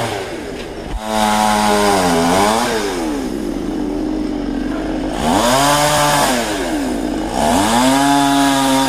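Chainsaw engine revving up and down as it cuts felled tree branches, its pitch rising and falling in several long swells. It gets louder about a second in.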